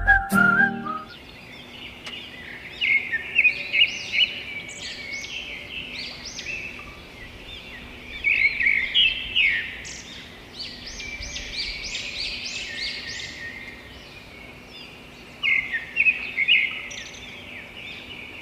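Small birds chirping and twittering in quick runs of high calls, in clusters with short lulls. Music cuts off about a second in.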